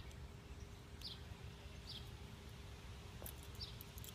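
Faint background rumble with a low steady hum, broken by a few soft, short high chirps about a second apart and a faint click or two.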